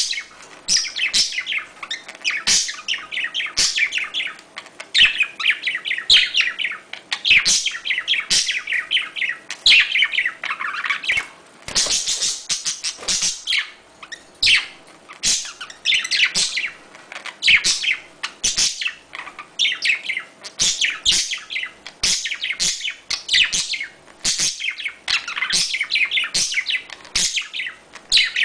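Budgerigars chattering in rapid runs of high chirps and warbles, one after another, while the male mounts the female to mate.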